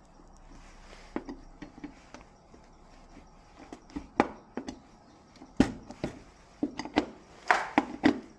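Handling noise of tools and parts on a hard work surface: an irregular run of sharp clicks and knocks, sparse at first and busier in the second half, the loudest about five and a half seconds in, with a brief scrape near the end.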